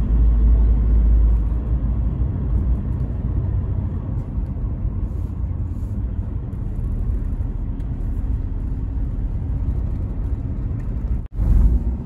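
Steady low rumble of a Toyota car's engine and tyres heard from inside the cabin while driving, broken by a short dropout near the end.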